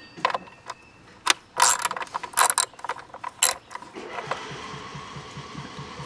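Hand ratchet with a 5/32 hex bit clicking in short, irregular bursts as the electric unicycle's motor screws are turned. About four seconds in, a lawn mower engine starts up and runs steadily, fainter than the clicks.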